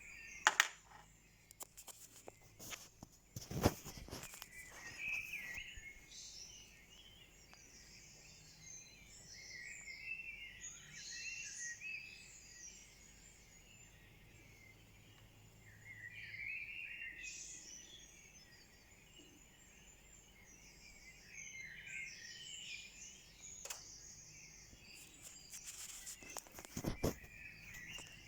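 Dawn chorus: many birds singing at once, chirps and trills overlapping throughout. A few sharp clicks or knocks stand out, the loudest near the start and about four seconds in, and another near the end.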